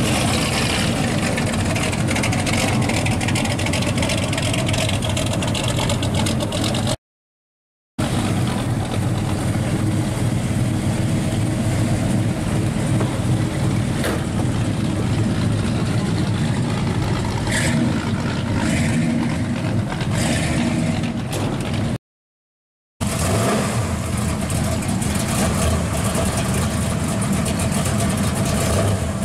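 Classic Chevrolet cars driving slowly past one after another, their engines running with a low exhaust note: a 1966 Impala Super Sport, then a Monte Carlo, then a Camaro. The sound cuts to silence for about a second twice, once between each pair of cars.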